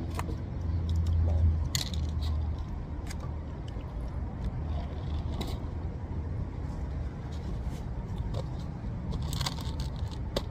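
Steady low rumble with a few scattered small clicks and crackles from eating and handling food and wrappers.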